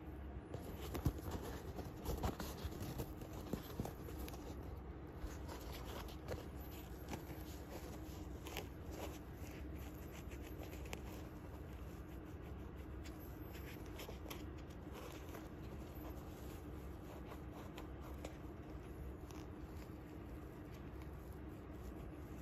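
Handling noise from a trail running shoe: fingers rubbing and tugging its braided laces and knit upper, small scratchy rubs and clicks that are most distinct in the first few seconds, over a faint steady hum.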